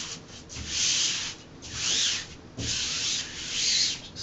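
Peel-and-stick wallpaper being smoothed onto a wall by hand or squeegee: about four swishing rubbing strokes, roughly one a second.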